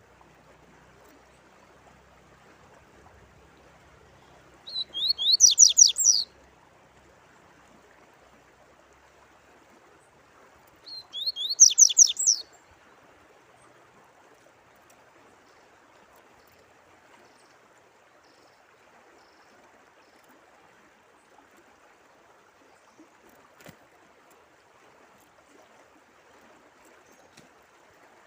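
A songbird sings two short phrases of rapid high notes, about six seconds apart, over a faint, steady trickle of running water.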